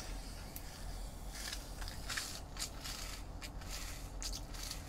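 Faint crisp crunching and clicking of pickled radish cubes, tipped from a plastic tray into the mouth and chewed, over a low steady hum.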